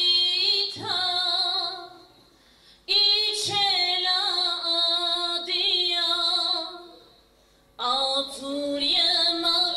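A woman singing unaccompanied into a handheld microphone, in long held phrases. She stops twice, each time for about a second, between phrases.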